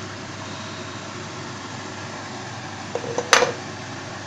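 A steady, even hiss of kitchen background noise, with a short burst of sharp clatter about three seconds in that is the loudest sound.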